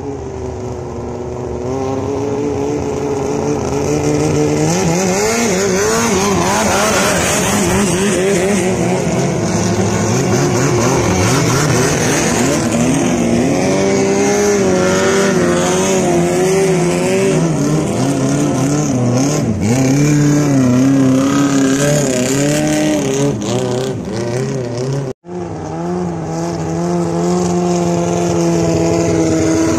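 Thai long-tail boat engines running hard at speed as the boats pass one after another, several engines overlapping, the pitch of each rising and falling as it goes by. A short dropout about 25 seconds in, after which one engine runs at a steadier pitch.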